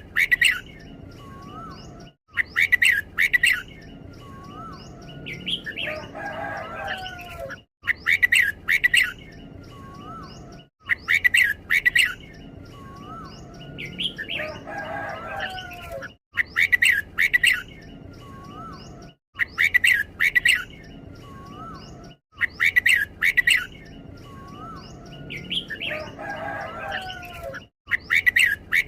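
Red-whiskered bulbul singing its short, bright song phrase over and over, about every three seconds, in the doubled style that keepers call 'เบิ้ล'. Every few phrases it gives a different, lower warbling phrase.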